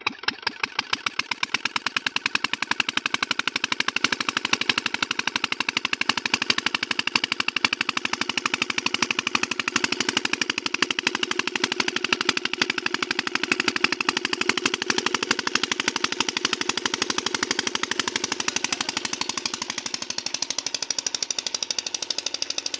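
Irrigation pump-set engine catching at the start and then running steadily with a rapid, even knocking beat, driving the water pump.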